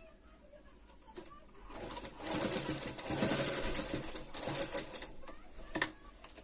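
Industrial sewing machine stitching lace onto fabric. It starts about a second and a half in, speeds up, runs for about three seconds and stops, and a single sharp click follows.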